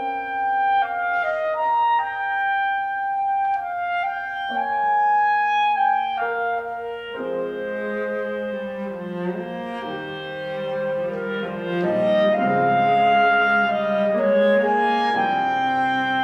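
Clarinet, cello and piano trio playing a slow classical movement. Held clarinet notes over sparse piano open it, and the texture fills out with lower parts about seven seconds in.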